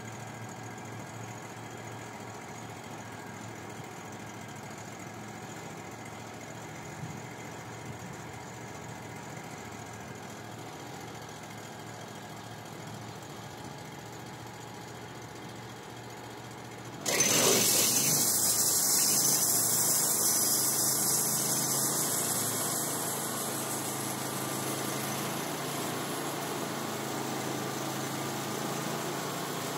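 A Wood-Mizer LT35 HD sawmill's engine runs steadily. About 17 seconds in, a loud rushing hiss cuts in suddenly, then eases over a few seconds to a steady level as the mill's blade or dust collection comes on.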